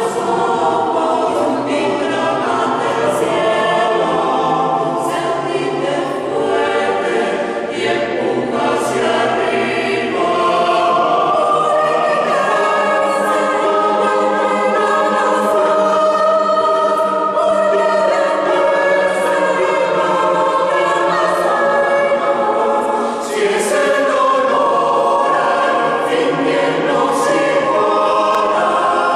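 Mixed choir of men and women singing a cappella in several parts, with sustained chords and sharp consonants. A brief breath pause comes about three-quarters of the way through before the singing picks up again.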